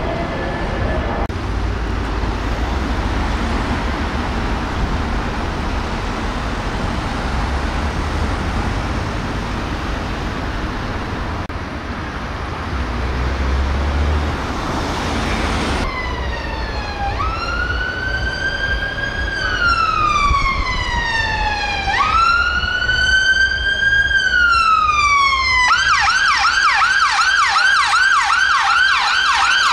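Steady traffic noise for the first half. Then an ambulance car's siren: two slow wails, each rising and falling, switching near the end to a fast yelp of about four cycles a second.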